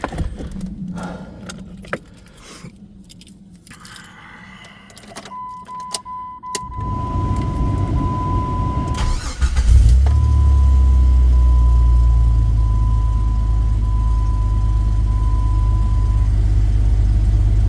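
Keys jangle and click at the ignition, then a steady electronic warning tone comes on. The 2003 Jeep Grand Cherokee's engine cranks for about three seconds, catches and settles into a steady idle. It starts and runs on its newly installed engine computer and wiring loom.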